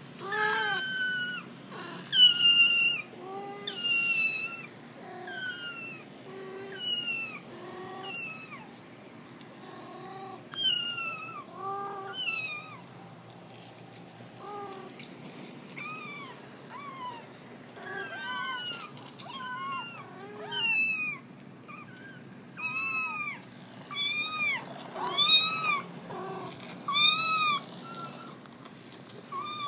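A cat meowing over and over: short calls that rise and fall in pitch, roughly one every second or two, some louder than others, played back from a video.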